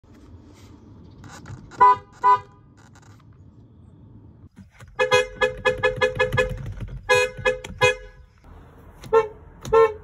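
BMW car horns sounded in short taps from the steering-wheel pad, heard from inside the cabin: two quick honks, then a rapid string of about eight toots, then several more single and paired honks.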